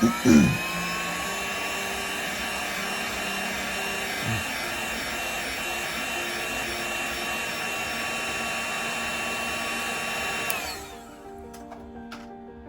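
A hot-air blower switched on, its motor whine rising in pitch as it spins up, then blowing steadily with a hiss and whine until it winds down and stops about ten and a half seconds in; it is warming the glue under the home button's ribbon cable to soften it. A couple of loud knocks at the very start and a smaller one about four seconds in.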